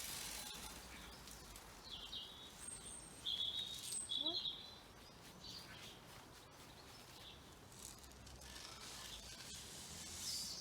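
Small wild birds chirping in short high calls, a cluster of chirps between about two and four and a half seconds in, over steady outdoor background noise.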